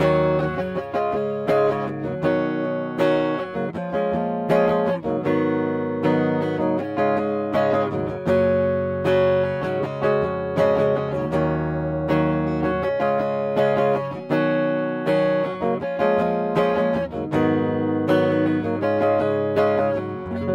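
Schecter C-1 Hellraiser electric guitar played on its neck pickup with a clean tone, picking chords and single notes, the notes ringing into each other.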